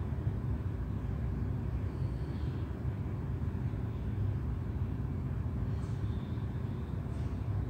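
Steady low background rumble with a faint hum under it, and a few faint high chirps.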